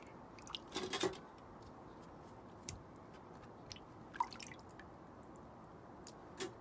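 Hands rinsing a freshly cast silver piece in a metal bowl of water: faint splashes, sloshing and drips, busiest about a second in, with a few single drips later.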